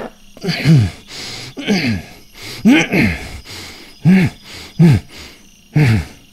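A voice-over performer's voice making about six short groaning grunts, each rising and then dropping in pitch, voiced as the frog.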